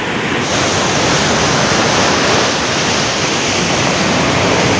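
Canal water pouring at speed over a weir, a loud, steady rush of white water.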